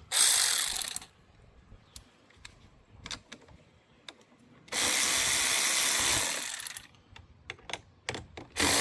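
Power ratchet or drill spinning a 10 mm socket to loosen the truck's battery terminal nuts, running in three short bursts of one to two seconds, with clicks and knocks of the tool and terminals between them.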